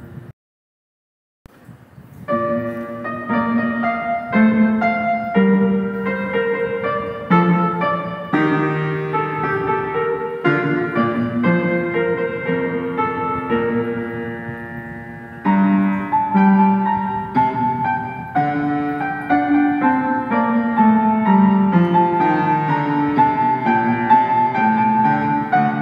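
Solo piano music: a melody of separate notes and chords that starts after about a second of silence and gets louder a little past halfway.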